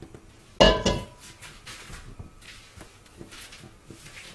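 A metal cooking pot clanks once on a gas stove, ringing briefly, followed by a few lighter knocks and clinks.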